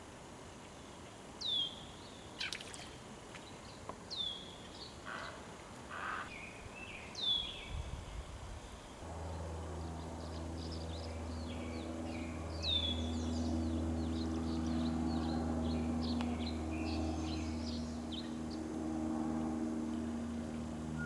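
Wild birds calling: one bird repeats a short, high call that slides downward, about every three seconds, among other birds chattering. About nine seconds in, a steady low engine drone comes in and keeps on.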